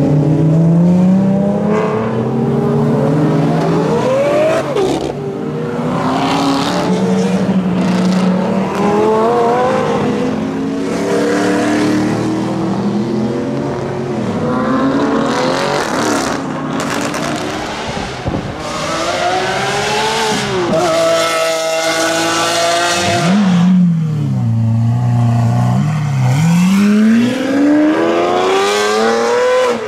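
Supercar engines revving and accelerating hard away one after another. Each engine note climbs in pitch, drops back at a gear change or lift-off, then climbs again, with one deep fall-and-rise of revs past two-thirds of the way through.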